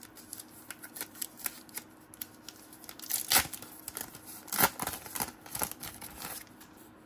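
1991-92 NBA Hoops trading cards being handled: cards slid and flicked against one another, light ticks with a few louder paper swishes around three and four and a half seconds in.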